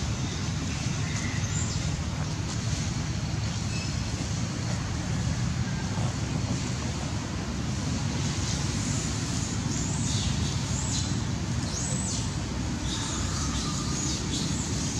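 Steady low outdoor rumble, like distant road traffic, with a few faint, brief high-pitched sounds near the end.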